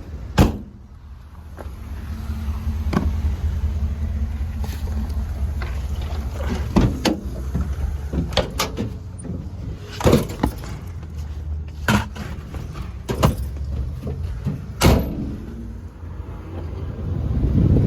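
Golf cart driving along, its motor running with a steady low hum that builds as it gets under way. Sharp knocks and rattles every second or two sound as it goes over bumps.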